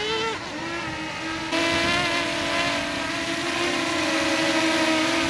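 Quadcopter drone's electric motors and propellers spinning up with a rising whine, then stepping up in level about a second and a half in to a steady buzzing hum, as for takeoff.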